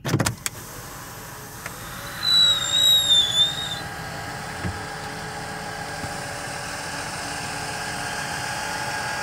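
Engine running steadily, with a short high-pitched squeal about two seconds in lasting a second and a half, and a thump at the very start.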